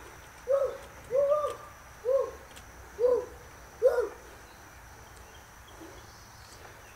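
Hydraulic floor jack squeaking with each pump of its handle: about six short squeaks, each rising then falling in pitch and about a second apart. They stop about four seconds in.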